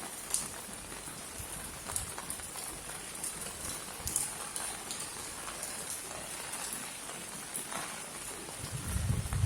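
Steady rain falling in a courtyard: an even hiss with separate drops ticking sharply now and then. A low rumble swells near the end.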